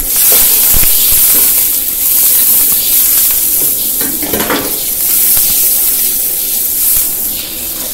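Food sizzling loudly in hot oil in a pan, starting suddenly as it goes in: the first step of making the gravy.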